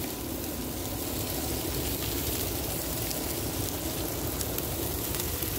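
Meat sizzling on a barbecue grill: a steady hiss with faint scattered crackles.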